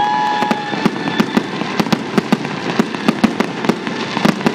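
Fireworks finale: a rapid, irregular crackle of pops and bangs from bursting shells, several a second. A high, held whistle sounds for about the first second.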